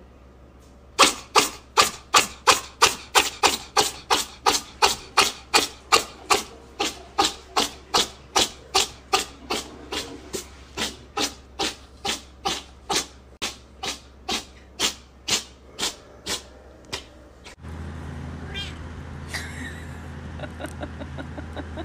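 A cat licking itself close to the microphone: a long run of sharp, wet licks at an even pace of about two to three a second, fading somewhat as it goes. The licking stops abruptly near the end, giving way to a steady low hum.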